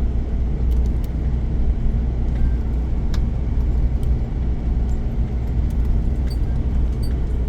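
A motor vehicle driving, heard from inside: a steady low engine and road rumble with faint light rattles and clicks.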